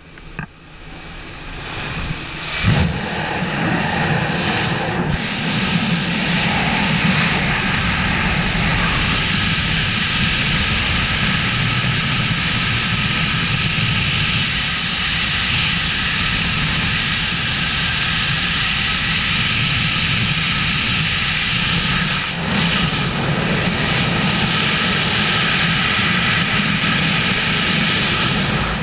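Freefall wind rushing over the jumper's camera microphone during wingsuit flight: a loud, steady rush. It builds over the first few seconds as the jumpers leave the jump plane's open door, with a sharp thump about three seconds in.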